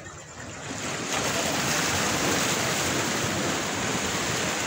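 Small waves washing against shoreline rocks: a steady rushing wash that grows louder about a second in.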